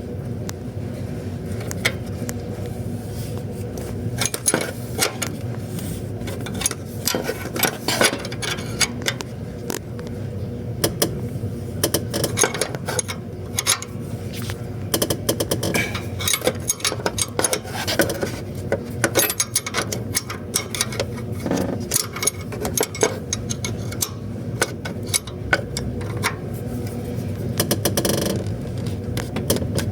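Irregular metallic clicking and clinking of a wrench working the alternator belt tensioner's locking bolt as it is tightened, over a steady low hum.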